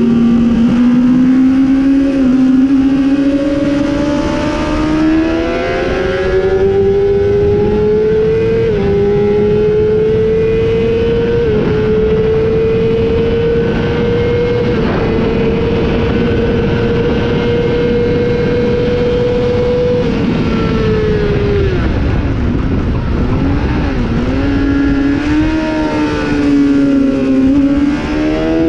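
Honda 600 supersport motorcycle's inline-four engine at race pace, heard onboard under heavy wind rush: it pulls up through the gears with short dips at each upshift, holds high revs down the straight, then drops away under braking with quick throttle blips on the downshifts about twenty seconds in, and climbs again near the end as it accelerates out of the corner.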